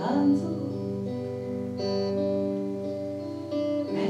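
Electric guitar played clean through a Roland Cube combo amp, strumming slow chords that ring out, with a new chord about every two seconds: an instrumental pause between sung lines of a song.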